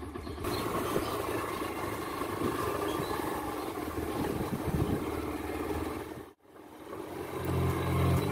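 A motor vehicle's engine running steadily with road or wind noise. It drops out abruptly about six seconds in, then comes back louder with a stronger engine note near the end.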